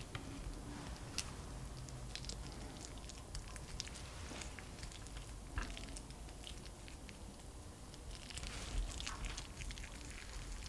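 Hands rolling a crisp, fried grated-potato sheet around its chicken and pepper filling: a scatter of small crackles and clicks from the crust as it bends, busier near the end.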